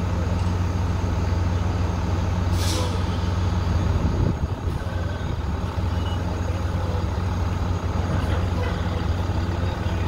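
Diesel engine of a heavy work truck running steadily at low revs, with one short hiss of air brakes about two and a half seconds in.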